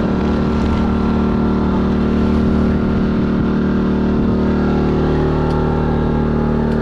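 A fishing boat's engine running steadily, a constant low hum with no change in speed.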